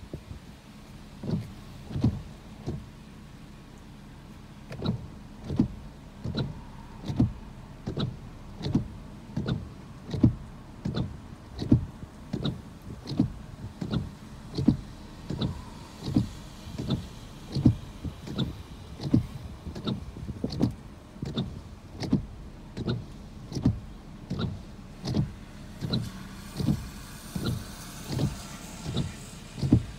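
Car windshield wipers sweeping across a wet windshield, each pass a short rub and thump from the wiper motor and blades, about four passes every three seconds. After a few passes and a short pause near the start, they run without a break.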